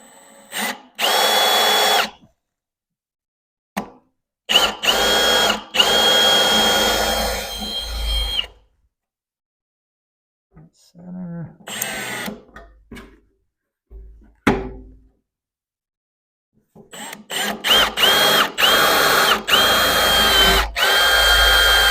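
Power drill with a step-tip bit boring holes through metal, run in three bursts with a steady motor whine, the last one near the end broken into several short pulls of the trigger.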